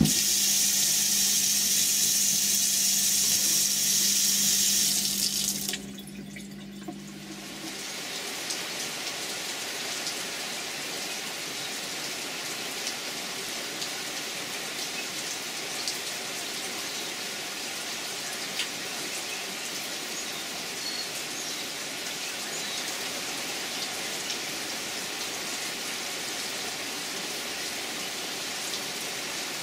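A kitchen faucet runs into a stainless steel sink as a loud, even hiss, over a low steady hum, and stops after about five seconds. From about eight seconds in, steady rain falls, with scattered drop ticks.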